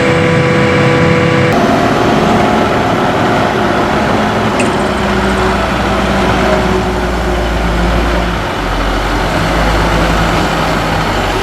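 Forage-harvesting machinery running steadily while chopping corn silage, the big diesel engine and chopper of a forage harvester alongside a tractor. The sound changes abruptly about a second and a half in, and a deep low hum comes up about five seconds in.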